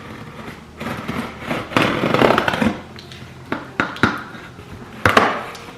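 A cardboard box being opened by hand: a stretch of rustling and scraping of cardboard and packaging, then a few sharp knocks as the contents are handled.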